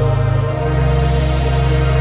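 Slow ambient background music with long held chords over a deep bass note that changes about half a second in.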